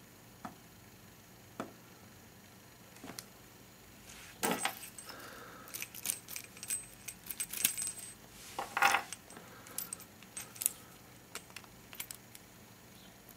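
Metallic clicks and small rattles as a 10-pin tubular lock pick and a tubular lock are handled and worked. A few isolated clicks come first, then a busy run of clicking and jingling through the middle.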